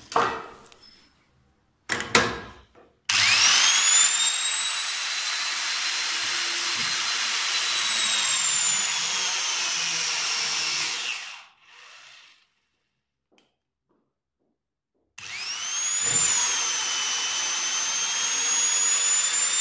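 Electric torque wrench's 800 W motor running with a high whine in two runs. The first lasts about eight seconds, its pitch sagging slowly near the end. The second starts after a pause of a few seconds. Two short knocks come near the start, before the motor runs.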